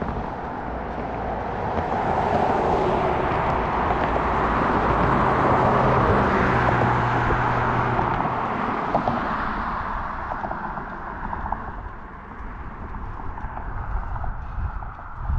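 A motor vehicle passing, its tyre and engine noise building to a peak about six seconds in, with a low engine hum at the loudest point, then fading away.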